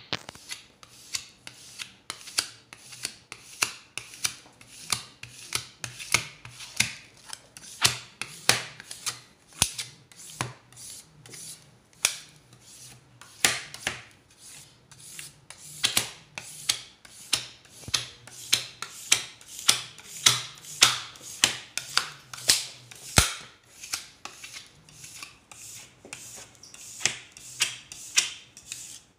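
Plastic squeegee and cloth rubbing over wet projection film in quick repeated scraping strokes, two or three a second, pressing the water out from under the film.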